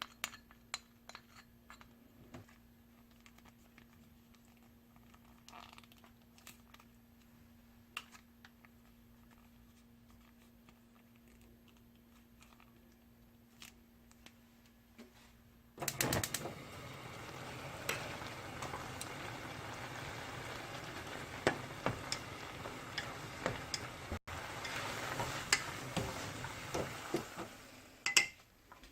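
Light utensil clinks over a steady low hum. About halfway in, a loud sizzle begins as Mala Buldak stir-fried noodles are fried and stirred in a pan, with utensils clicking against it, and the sizzle drops off near the end.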